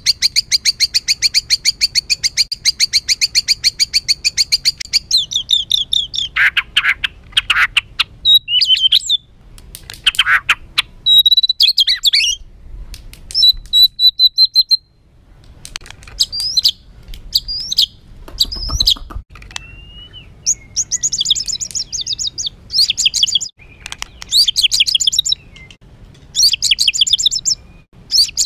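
White-rumped shama (murai batu) singing a harsh, agitated song. It opens with a fast run of rapidly repeated high notes lasting about five seconds, then breaks into varied whistles, chattering rattles and short phrases.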